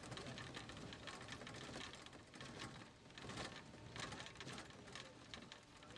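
Faint, irregular clicking and ticking, many small clicks in quick succession.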